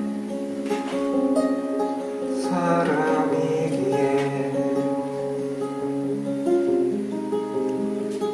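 Acoustic guitar playing chords in the song's instrumental ending, with a strummed chord about three seconds in and notes left ringing.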